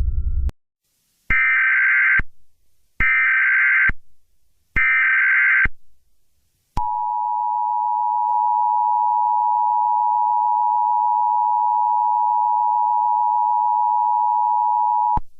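Emergency Alert System tones: three short buzzy bursts of SAME header data, each about a second long with a short gap between them, then the steady two-tone EAS attention signal held for about eight seconds and cut off sharply. Together they mark the start of an emergency alert broadcast.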